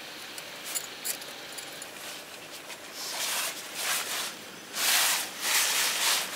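Large tarp fabric rustling and swishing as it is unfolded and shaken out, with a few light crinkles at first, then a run of loud swishes in the second half.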